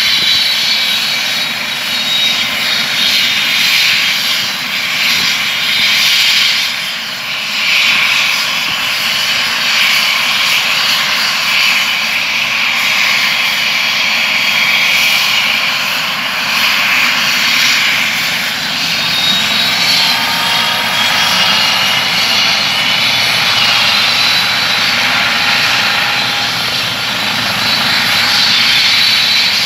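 Air ambulance helicopter running on the ground during start-up: a loud, steady turbine whine with high tones, a few of them gliding upward around the middle.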